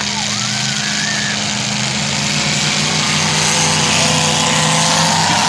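Demolition derby car engine running steadily at idle, its pitch shifting slightly about two seconds in.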